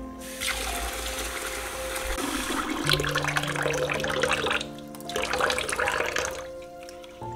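Water running and sloshing as basmati rice is rinsed by hand in a glass bowl, in two spells with a short break a little past halfway. Soft background music plays underneath.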